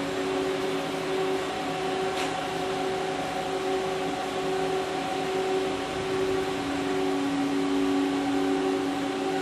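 Haas SL-30T CNC lathe running under power: a steady mechanical hum with several held tones, some of them wavering in strength.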